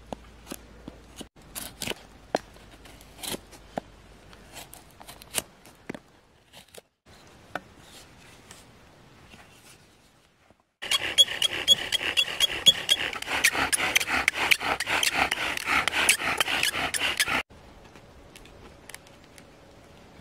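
Knife blade carving Eastern white cedar in short scrapes and clicks, then a bow drill's spindle spun back and forth in a cedar hearth board for about six seconds: a loud, continuous rubbing grind with a thin high squeak at first, burning in the socket. It cuts off suddenly.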